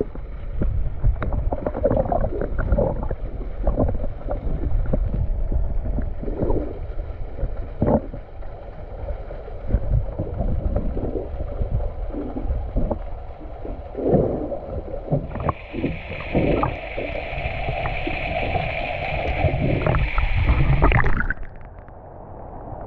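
Camera microphone held underwater: muffled sloshing and gurgling of sea water against the housing, with irregular knocks and bumps. From about two thirds of the way in a steady high whine joins, and everything cuts off abruptly near the end.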